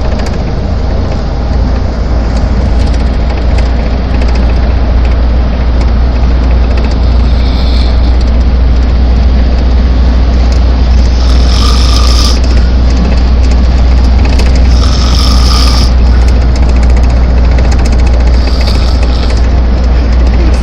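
A person snoring, a breathy snore about every four seconds, over a loud, steady, deep rumble like the inside of a moving vehicle.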